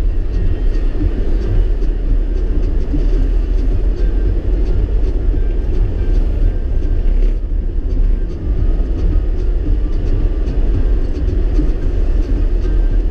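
Steady low rumble and road noise of a vehicle on the move, with faint ticking mixed in.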